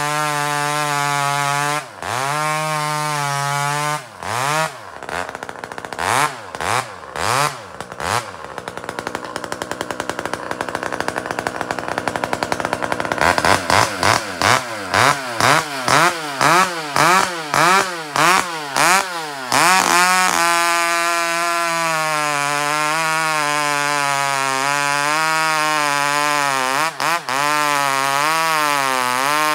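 Pioneer P-51 two-stroke chainsaw, fitted with a muffler mod and a new Tillotson carburetor, revved up and down several times. About eight seconds in it is held at high revs for several seconds, then blipped quickly about twice a second. Around twenty seconds in it drops to a steady, slightly wavering idle.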